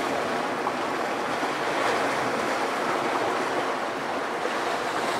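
Sea waves breaking and washing among shoreline rocks: a steady, even rush of surf.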